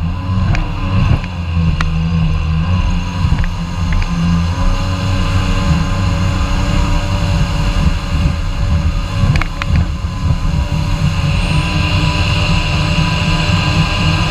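Kawasaki Ultra 150 jet ski's two-stroke three-cylinder engine running steadily under way, a deep even drone with a few sharp ticks, and a hiss that grows stronger near the end.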